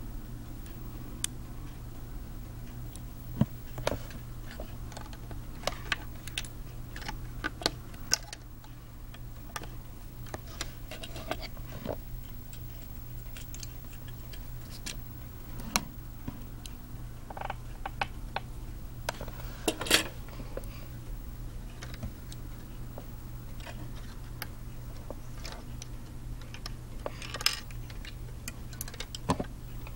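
Plastic Lego pieces being handled and snapped together: scattered, irregular small clicks and rattles, some in quick clusters, over a steady low hum.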